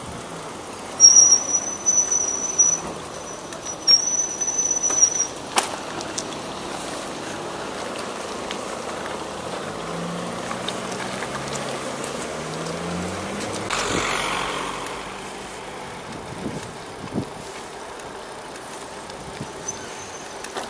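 Brakes squealing with a steady high-pitched squeal in two long stretches, starting about a second in. Later a motor vehicle speeds up and passes with a rush of tyre and road noise about fourteen seconds in.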